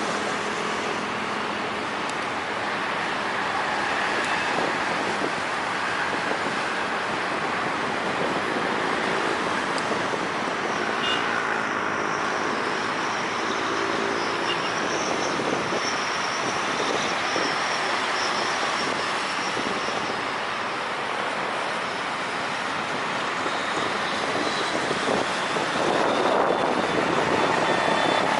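Helicopter in flight, its turbine and rotor noise mixed with a steady rush of wind on the microphone, with a faint high whine for several seconds midway.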